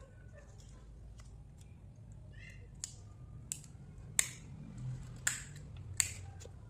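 Crisp dessert cracking and snapping: five sharp, short snaps spread over the second half, with faint small crackles before them.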